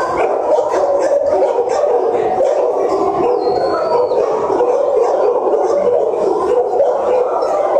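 A chorus of many kennelled shelter dogs barking and howling at once, a steady unbroken din.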